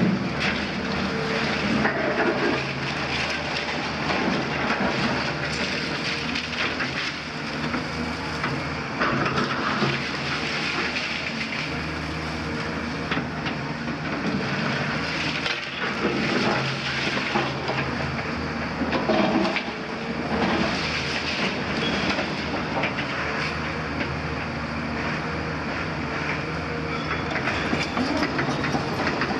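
Caterpillar 340F hydraulic excavator's Cat C9.3 diesel engine running steadily under load. Its steel bucket scrapes and drops brick and concrete rubble, giving a continual irregular clatter and knocking.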